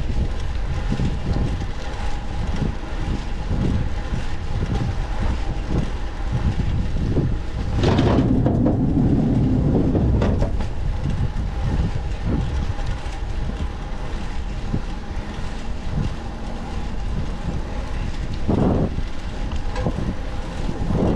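Wind buffeting the microphone during a bicycle ride, with road and traffic rumble underneath. A louder rush comes about eight seconds in and lasts about two seconds.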